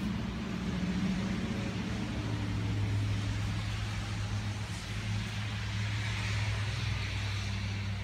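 A steady low hum with an even hiss, like a machine or fan running, growing somewhat stronger about two seconds in.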